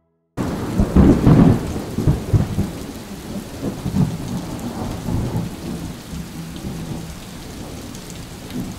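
Thunderstorm sound effect: a deep roll of thunder comes in suddenly and is loudest about a second in, then dies into steady rain.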